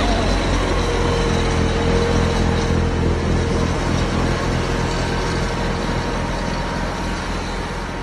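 Compact cab tractor with a front-mounted snowblower running steadily under load as it clears deep snow, its engine and blower making a loud, even noise.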